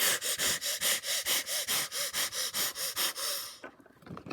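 A person making rapid, hard huffing breaths through the nose and mouth, about three a second, in an angry, asthma-like panting; it stops about three and a half seconds in.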